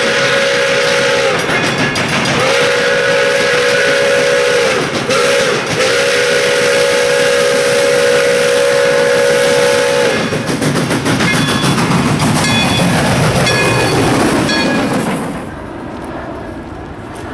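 Steam locomotive whistle blowing the grade-crossing signal: the end of one long blast, then a long, a short and a long blast. The engine then passes with rumbling and rapid clanking, and near the end the sound drops to the quieter rolling of autorack freight cars.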